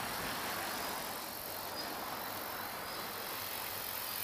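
Large multirotor agricultural spray drone flying at a distance, its propellers and motors giving a steady, even whirring hum.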